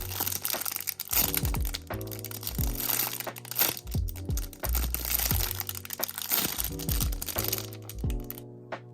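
Background music with a steady bass pulse, over crisp crinkling and crackling of plastic squishy packaging being handled. The music cuts out briefly near the end.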